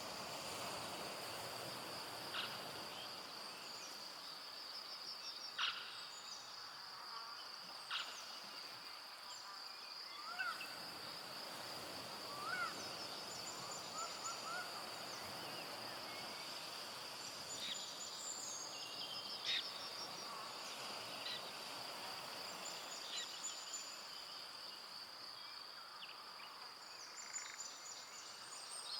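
Evening forest ambience: a steady, high, finely pulsing insect trill, with scattered brief bird chirps and sharp calls over it.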